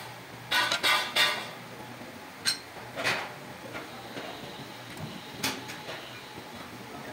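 Metal moulding flasks and pattern pieces knocking and scraping against each other as they are handled: a quick run of rattling clanks about half a second to a second and a half in, then single clanks near three seconds and five and a half seconds.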